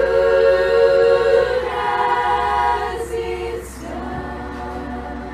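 Girls' choir singing long held notes. The chord shifts about two seconds in, two short 's' sounds come near the middle, and the singing turns softer about four seconds in.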